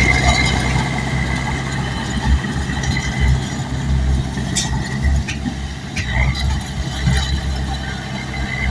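Bulldozer's diesel engine running steadily, its loudness rising and falling, with a few sharp metallic clanks around the middle.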